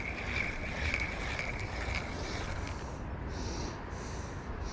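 Steady low rumble of wind on the action camera's microphone. A thin high tone fades out about halfway through, and a run of short, evenly spaced high-pitched pulses starts about three seconds in.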